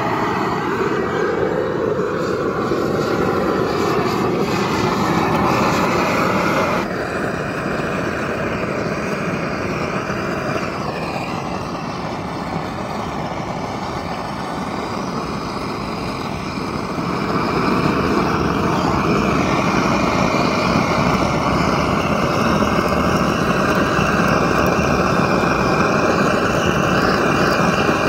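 Hand-held LPG gas burner (blowtorch) running with a steady flame noise as it singes the hair off a beef trotter, the level shifting a few times.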